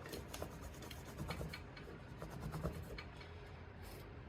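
Cotton wetted with alcohol rubbing over a car key fob and its rubber button keypad: faint, irregular scratchy strokes.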